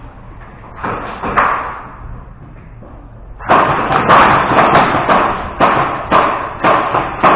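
Sharp thuds and knocks: two about a second in, then a steady run of about two a second from halfway on, over a continuous rustling clatter.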